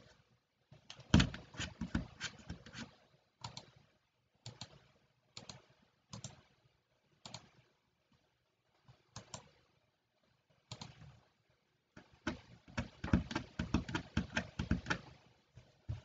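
Typing on a computer keyboard: a quick run of keystrokes about a second in, scattered single key presses through the middle, and another longer run near the end.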